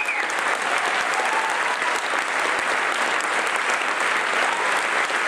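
Audience and choir applauding together: dense, steady clapping from many hands.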